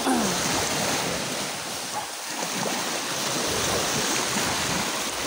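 Small waves washing in and out over the shore in shallow surf, a steady rushing of water.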